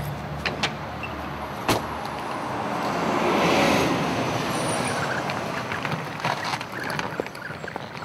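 A car passing along the street, its tyre and engine noise swelling to a peak about three and a half seconds in and then fading away. A sharp knock comes about two seconds in, with lighter knocks and clicks from luggage being handled at the car's boot.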